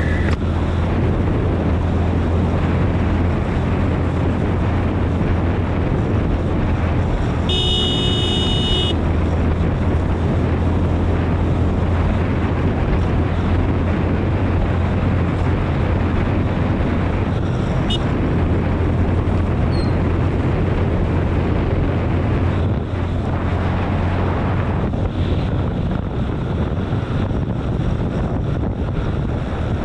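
Motorcycle engine running at a steady cruising speed, with wind noise on the handlebar-mounted microphone. A horn sounds once, about a second long, a quarter of the way in.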